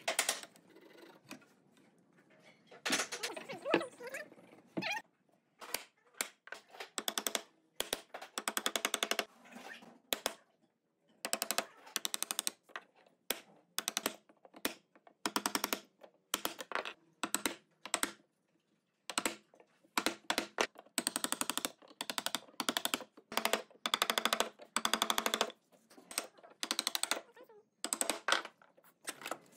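Repeated short runs of rapid, sharp mechanical clicks, many strikes in quick succession, with brief pauses between runs: a workshop tool working in quick bursts.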